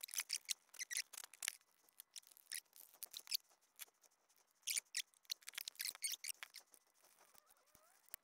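Faint, irregular clicks and light scrapes of a screwdriver and plastic housing parts as a belt sander is screwed back together, with a faint short squeak near the end.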